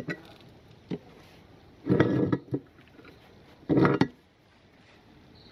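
Crumbs being scraped and rubbed out of the metal barrel of a meat grinder: a few light knocks, then two short scraping rubs about two seconds apart.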